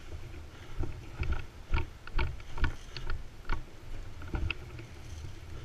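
Footsteps on a gritty, debris-strewn concrete floor: a series of irregular scuffing knocks, about two a second, as the camera wearer walks through the building.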